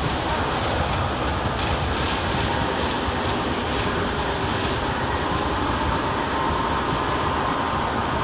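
Iyotetsu electric train running along the track, heard from inside the carriage: a steady rumble with a few sharp clicks of the wheels in the first few seconds, and a faint steady whine coming in about six seconds in.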